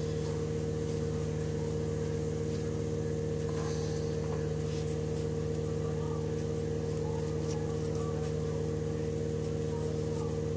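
A steady mechanical hum with several fixed tones, unchanging in level, under faint soft crackles of bread being crumbled by hand over minced chicken.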